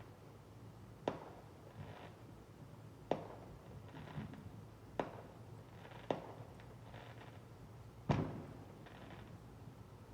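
Fireworks going off: five sharp bangs spaced one to two seconds apart, the loudest near the end, each followed by a short fading tail.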